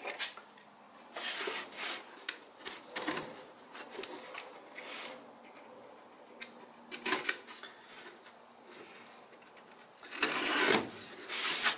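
Parts being handled at a workbench: scattered light clicks and knocks, and rustling of a cardboard parts box and its packaging, louder for about a second near the end.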